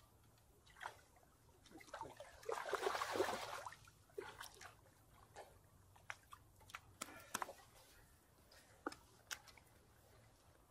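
A small carp being landed by hand: a burst of wet splashing and flapping about two to four seconds in, then scattered short clicks and rustles as the fish is handled.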